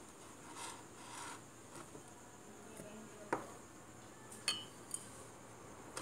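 Crockery handled on a tabletop: a ceramic mug and glass bowl shifted about with soft rubbing, a sharp knock about three seconds in and a short ringing clink a second later.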